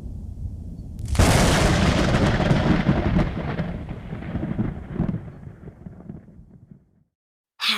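Thunder sound effect: a faint low rumble, then a sudden loud crack about a second in, followed by a rolling rumble with a few smaller cracks that fades away over several seconds.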